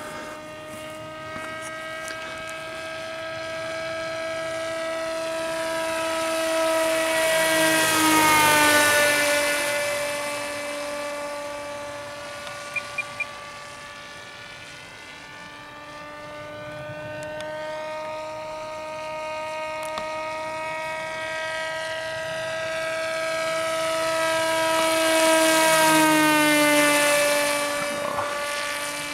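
Radio-controlled HobbyKing SuperG autogyro making two low passes. The steady pitched whine of its motor and propeller swells, drops in pitch as the model goes by about eight seconds in, and fades. It then swells and drops in pitch again near the end.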